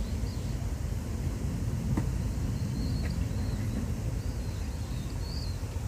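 Steady low outdoor rumble, with a few faint short high chirps and a single click about two seconds in.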